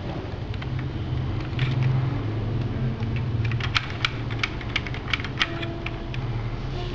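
Plastic clicking of a LEGO brick-built gun's trigger mechanism being worked by hand: a quick run of a dozen or so sharp clicks, most of them between about three and five and a half seconds in, over a low steady hum.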